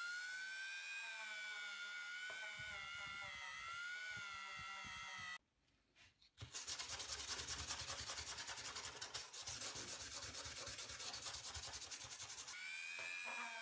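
A small hand-held rotary tool whines with a wavering pitch as it works the steel of an old pair of scissors. After a brief silence, an abrasive is rubbed back and forth over the steel in quick, scratchy strokes for several seconds. The rotary tool's whine returns near the end.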